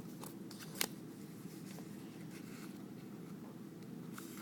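Origami paper being folded and creased by hand: faint rustling with a few crisp paper crackles, the sharpest just under a second in and another cluster near the end.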